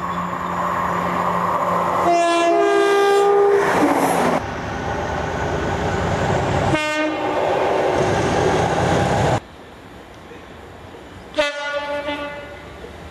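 Train horns over the noise of a train running: a long two-tone blast that steps up in pitch about two seconds in, a short blast near seven seconds, and after an abrupt cut to quieter background, another short blast about eleven seconds in.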